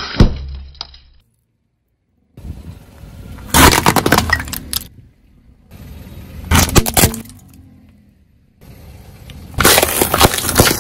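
A car tyre rolling over small objects on asphalt and crushing them: a snap of plastic lighters breaking at the start, then three separate bursts of cracking and crunching a few seconds apart. The last is cardboard snack tubes being flattened under the wheel.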